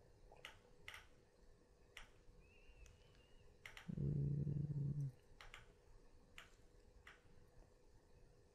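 Sparse sharp clicks of a computer mouse as the page is scrolled, with a low, steady vocal sound lasting about a second about four seconds in.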